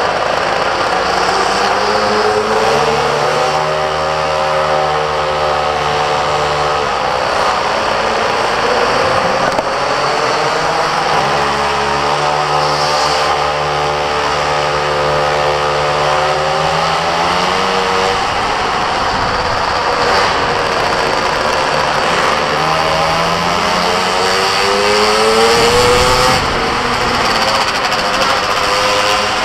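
Minimoto's small engine revving as it is ridden hard, its pitch climbing and dropping again and again.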